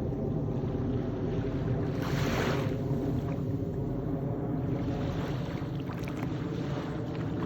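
Airplane engine droning steadily overhead, with small waves washing ashore in surges about 2 seconds in and again about 5 seconds in.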